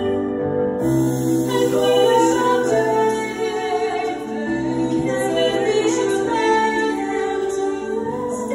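A woman singing live into a microphone, holding long notes over a soft instrumental backing.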